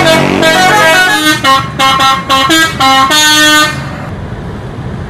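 A bus's multi-tone musical air horn, a 'telolet' horn, playing a quick tune of short notes at stepped pitches. It stops about three and a half seconds in, leaving a lower rumble of traffic.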